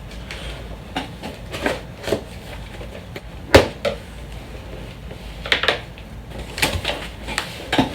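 Irregular knocks, clicks and scrapes of a boxed softbox lighting kit being handled and opened, the sharpest knock about three and a half seconds in.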